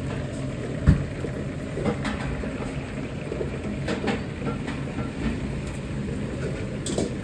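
A commercial gas wok burner is running with a steady low rush, along with frying oil. Metal knocks and clinks come from wire spider strainers and a ladle against the wok and steel pots, the loudest a sharp knock about a second in.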